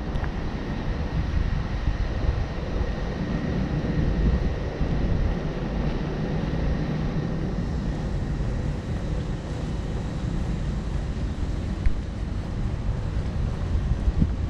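Wind buffeting the microphone, a low uneven rumble, over an outdoor background hum.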